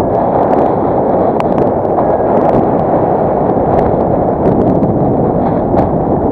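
Strong wind blowing over the camera microphone: a loud, steady rushing rumble that drowns out any other sound, including the variometer's beeping.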